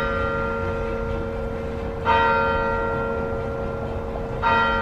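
A church bell tolling slowly, struck about every two and a half seconds, twice within these seconds; each strike rings on and fades into the next.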